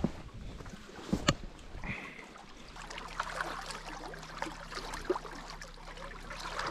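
Small waves lapping and trickling among the shoreline rocks of a lake, with one sharp knock about a second in.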